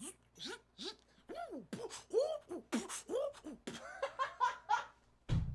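Beatboxed robot-monkey sound effect: a string of short, squeaky mouth chirps, each rising and falling in pitch, coming faster and more crowded in the second half.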